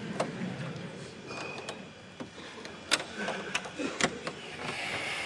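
Scattered sharp clicks and knocks from computer equipment being handled on a desk, over a low murmur in a large hall.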